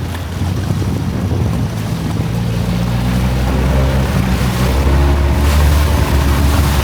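Longtail boat engine running under way, its drone growing louder and fuller about halfway through, with wind buffeting the microphone and water rushing past the hull.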